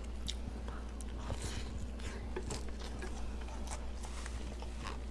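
Close-up chewing and biting of a bacon cheeseburger with barbecue sauce, a run of irregular short wet clicks and smacks of the mouth.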